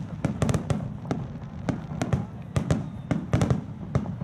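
Finale barrage of aerial firework shells bursting, many sharp bangs in quick succession over a low rumble.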